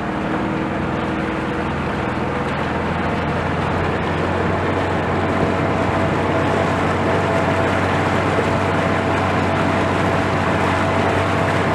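Motorboat engine running steadily under way: a constant drone over an even rushing noise, with no change in pitch.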